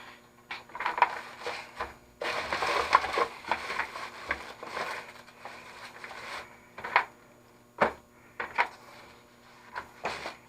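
Ratchet wrench being worked on a stuck, rusted fastener, a crunching mechanical clatter. It starts with a few clicks, gets dense from about two seconds in for roughly four seconds, then breaks into separate sharp clicks and knocks.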